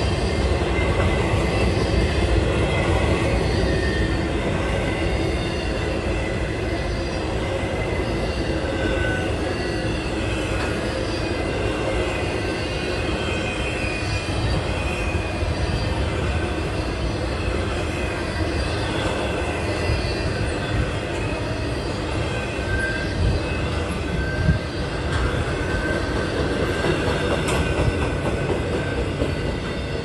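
Intermodal freight train's well cars and container cars rolling past close by: a steady rumble of steel wheels on rail with a regular clicking beat. A few brief wheel squeals come in about nine seconds in and again near the end.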